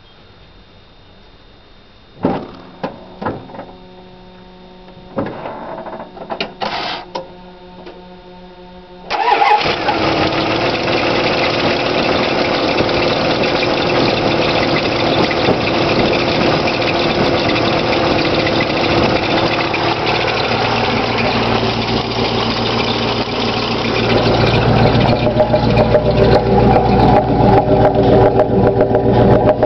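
A few knocks and short sounds, then a 1991 Dodge Ram 150 pickup engine starts about nine seconds in and settles into a steady idle. Near the end it is louder and deeper, heard from the truck's dual exhaust stacks.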